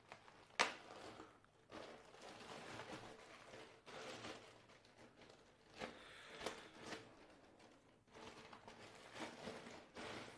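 Polythene bag crinkling and rustling in several bursts as a laptop is drawn out of it, with one sharp click about half a second in.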